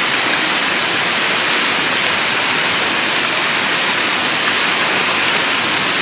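Steady rain, an even hiss of drops falling on the ground around.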